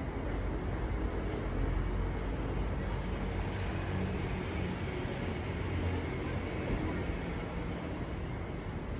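Steady low rumble of outdoor city background noise, like distant traffic, with no distinct events.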